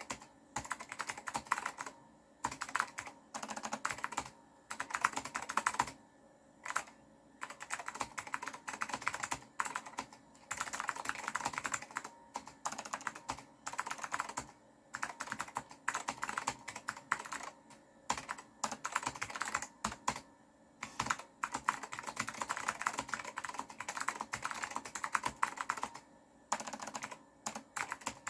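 Typing on an Apple M0116 mechanical keyboard with blue Alps switches: fast runs of sharp clicky keystrokes in bursts of a second or two, with short pauses between words or lines.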